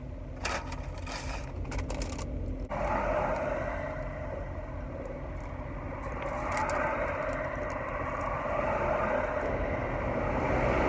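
Car interior while driving: a steady low road and engine rumble, with a quick run of clicks and rattles in the first couple of seconds, then a hiss that comes in suddenly and grows louder toward the end.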